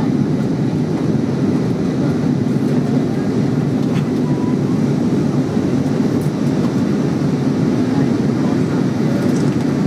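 Steady low roar of cabin noise inside an Airbus A320 airliner on descent, the engines and the air rushing past the fuselage heard through the cabin.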